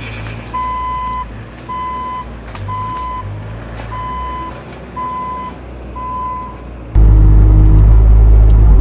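Backup alarm of a Bobcat T650 compact track loader beeping six times, about once a second, as the machine reverses, over its diesel engine running. About seven seconds in the engine sound suddenly gets much louder and lower, a heavy rumble.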